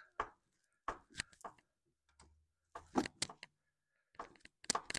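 Carburetor on a Kawasaki V-twin small engine being rocked back and forth by hand to break it loose from the intake: scattered short metallic clicks and knocks in small clusters.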